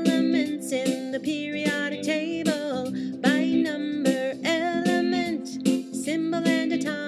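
Music: a song with guitar accompaniment and a sung melody over held chords.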